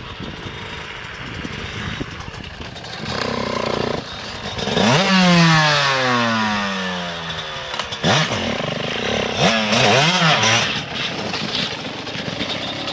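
Yamaha YZ125 two-stroke motocross bike engine: running at a distance at first, then close up it is revved hard at about five seconds with the pitch falling away over the next two seconds, blipped again around eight and ten seconds, and left idling near the end.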